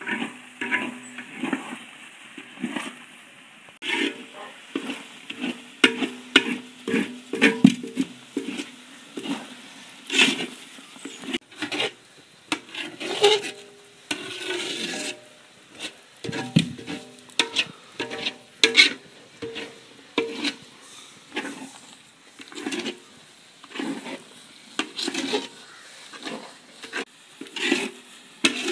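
A long-handled metal ladle scraping and stirring thick, sticky kalu dodol in a large aluminium wok. The strokes repeat about once a second, some ringing briefly from the metal pan, over a faint sizzle as the mixture cooks down.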